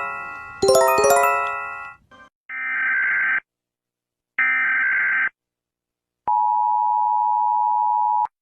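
Emergency alert tones: a quick run of bell-like chime notes sounded again about half a second in, then two electronic beeps about a second long each, then a steady tone held about two seconds that cuts off suddenly.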